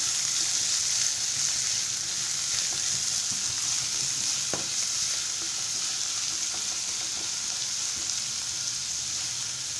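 Chopped onions frying in hot sunflower oil in a nonstick pan, sizzling with a steady hiss while a silicone spatula stirs them, with one small click about halfway through.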